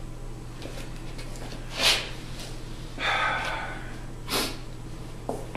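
A man sniffing and breathing a few times: two short sharp sniffs about two and a half seconds apart, with a longer breath between them, over a steady low hum.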